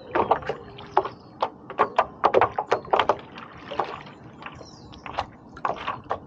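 Water splashing and slapping around a stand-up paddleboard as it is paddled: a quick run of short, irregular splashes and slaps.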